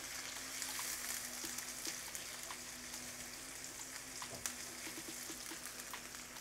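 Sliced onions sizzling in hot oil in a nonstick pan, with small crackles and the occasional tap of a silicone spatula as they are stirred. A faint steady hum sits underneath.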